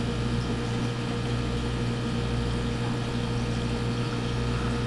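Aquarium pump humming steadily, a low mains-pitched buzz over a faint rushing of water.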